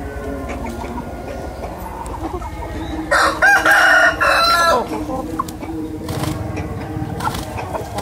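A rooster crows once, a single loud crow lasting under two seconds, about three seconds in.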